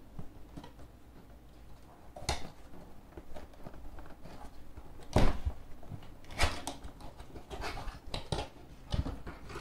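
Cardboard laptop box being handled and opened by hand: scattered knocks, scrapes and rustles of cardboard, the loudest about five seconds in.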